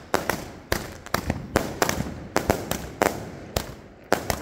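Fireworks going off in a rapid, irregular string of sharp bangs, about four a second, each with a short fading echo.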